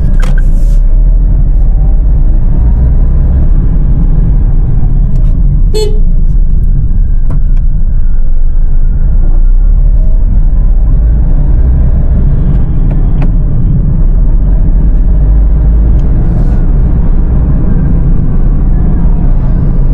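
Toyota Agya 1.2's three-cylinder engine and road noise heard from inside the cabin while driving, a steady low drone. A short beep about six seconds in.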